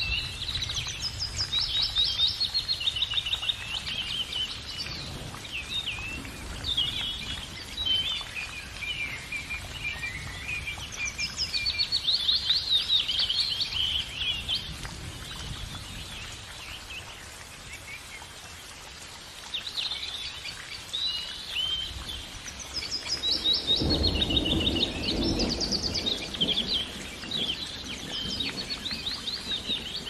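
Small songbirds singing in rapid trills and chirps, phrase after phrase, with a brief low rumble about three quarters of the way through.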